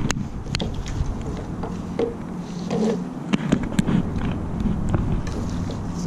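Irregular knocks and clicks as a European perch flaps in a landing net on wooden deck boards and the net is handled, over a low rumble of wind on the microphone.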